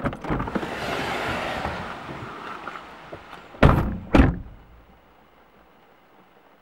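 Front car doors open and two people climb out with a few seconds of rustling, then the two doors slam shut about half a second apart, heard from inside the car.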